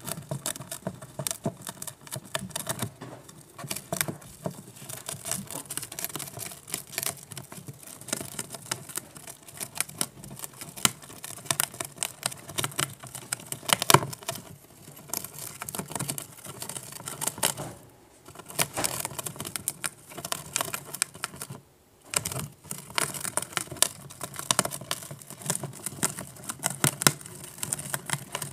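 Mongolian gerbils gnawing the edge of a cardboard sheet: a fast, irregular run of crackling clicks as their teeth tear at the card, with a couple of brief pauses.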